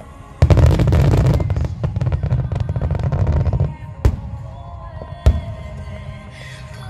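Aerial fireworks shells bursting. About half a second in, a dense barrage of deep booms and crackling starts suddenly and lasts about three seconds, followed by two single sharp bangs.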